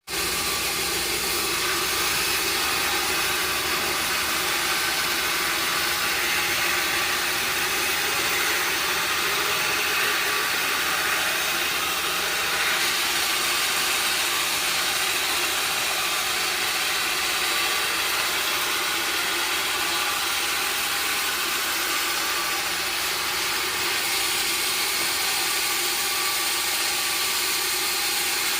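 Sawmill machinery running, a loud steady mechanical noise without any clear rhythm.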